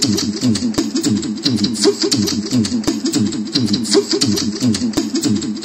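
Vocal percussion imitating a tribal drum: a fast, even beat of deep thumps that drop in pitch, with sharp tapping clicks over them, all made with the mouth.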